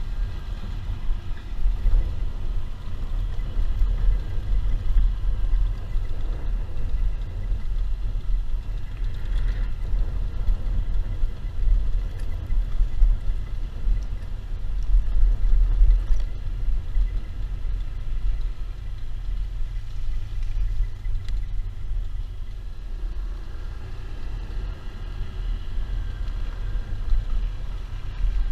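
Riding a motorbike: a steady low rumble of wind buffeting the microphone, with road and engine noise beneath it.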